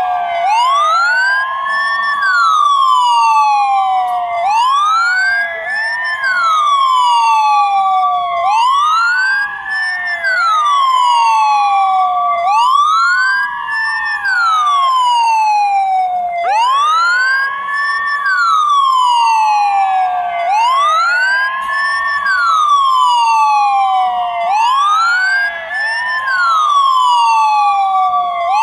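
Ambulance siren sound effect in a wail pattern: a tone that rises quickly and falls slowly, repeating about every four seconds. A second siren tone is layered over it, rising and holding steady.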